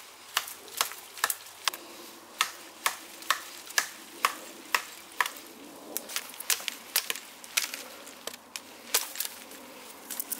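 Large fixed-blade bushcraft knife chopping into a wrist-thick branch: a steady run of sharp strikes about two a second, then, after a short pause, a looser flurry of hits as the branch is cut through.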